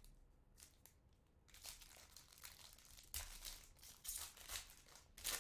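Trading-card pack wrapper and cards being handled: soft, irregular crinkling and rustling, with a few louder rustles about three seconds in and near the end.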